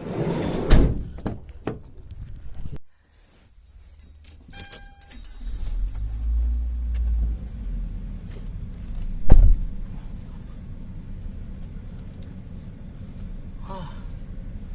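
Keys jangling and being handled, with a few knocks. A vehicle engine then runs with a steady low rumble, broken by one loud sharp knock about nine seconds in.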